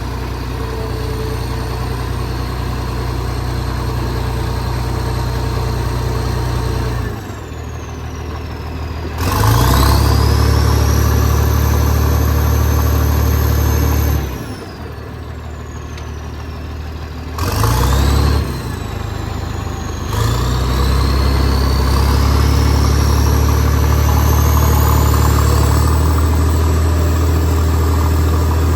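Cat 977H crawler loader's diesel engine working under throttle. It drops back about a quarter of the way in, comes up again, drops about halfway through, surges briefly, then holds high revs. A high whine rises and falls with the engine speed.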